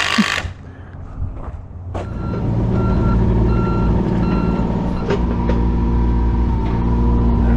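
A short burst of hiss, then about two seconds in a diesel engine on a piece of construction equipment comes in and runs steadily. For a few seconds its backup alarm beeps evenly as it reverses.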